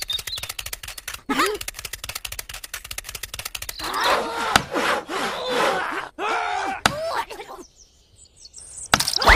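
Rapid rasping strokes of a small saw cutting through a wooden stick, with birds chirping, then a few sharp knocks of a small axe chopping into the wood.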